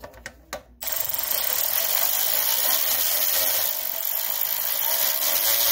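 A ratchet wrench with an 8mm socket clicking rapidly and steadily as it runs a flywheel-cover bolt down. The clicking starts about a second in.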